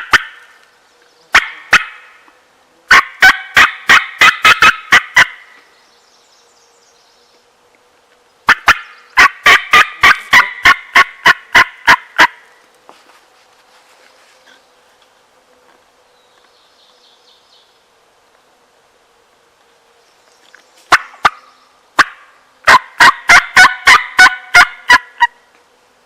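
Wild turkey yelping: a few single yelps, then three loud runs of about ten to twelve sharp yelps each, at three to four a second.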